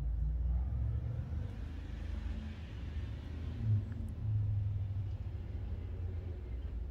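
A car passing on a nearby road: a low rumble with tyre hiss that swells through the middle and fades again.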